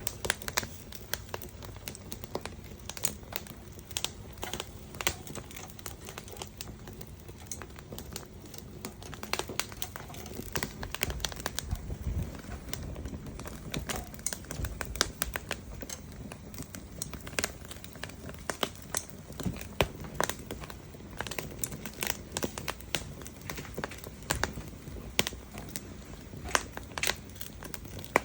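Wood fire crackling with many irregular sharp pops, with pork belly grilling over it.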